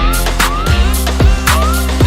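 Instrumental K-pop dance track: a heavy bass line and kick drum on a steady beat, bright snare or clap hits and short rising synth swoops, with no vocals.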